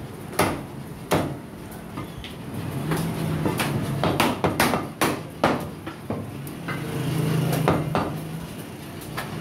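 Butcher's cleaver chopping mutton: sharp, irregular chops, about one or two a second, some coming in quick runs of two or three.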